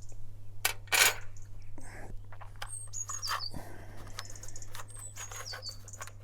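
A small bird singing short, high, falling chirps in a few brief phrases, over clicks and knocks of small tackle items being handled and sorted in a tackle box. A low steady hum runs underneath.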